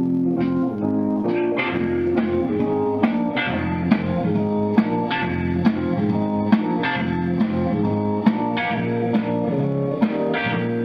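Guitar music with a steady beat, played from an iPod through a freshly repaired NAD 2400 solid-state stereo power amplifier into a pair of test speaker cabinets: a listening test after the repair, and the amp sounds pretty good.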